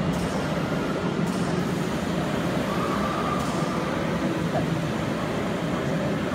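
Steady hum and rumble of machinery in a robotic welding cell. The level does not change when the robot starts welding partway through, so no distinct arc crackle stands out.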